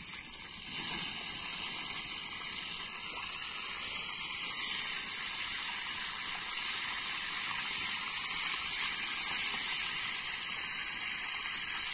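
Pieces of seasoned fish frying in hot lard in a pan over an open wood fire: a steady sizzle that jumps up about a second in, as pieces are dropped into the fat, and then grows slowly louder.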